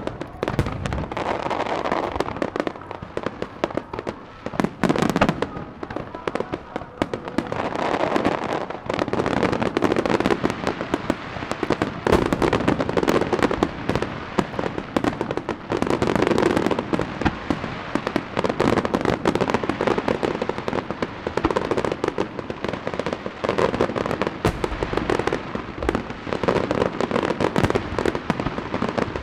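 Aerial fireworks display: shells bursting one after another with dense crackling, a continuous barrage with no pause.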